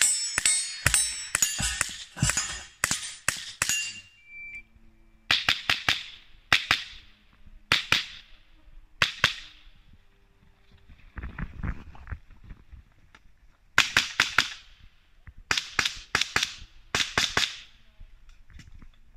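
Semi-automatic minirifles firing rapid strings of shots in a practical shooting stage: a dense run of quick shots at the start, then several short groups of fast shots with pauses between, each shot trailing off in a short echo.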